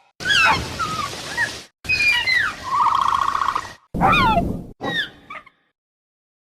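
Dilophosaurus sound effect in its calm, peaceful calls: a run of bird-like chirps and falling squeals, with a trilling warble in the middle, cut together as separate calls with short silent gaps. It stops about five and a half seconds in.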